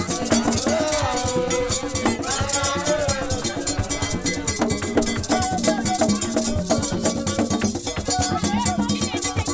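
Live Haitian Vodou ceremony percussion: a struck metal bell and drums in a fast, steady rhythm, with rattles. Voices sing over it, strongest in the first few seconds.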